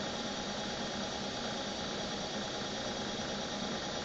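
Comet 3KVHD vertical knee mill running steadily, an even mechanical hum with a faint high whine.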